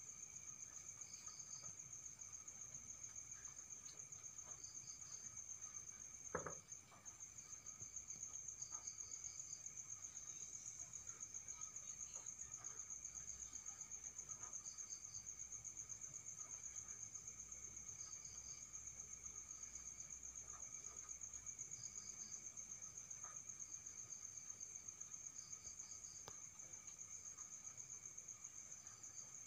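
Night insects chirping: a steady, fast-pulsing high trill, with a second, shorter chirp repeating every two to three seconds. A single sharp knock about six seconds in.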